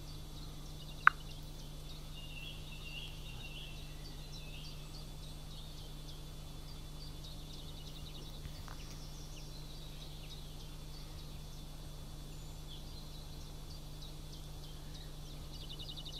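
Wild birds calling, short high chirps scattered throughout, with one sharp, loud chirp about a second in and a fast trill near the end, over a steady low hum.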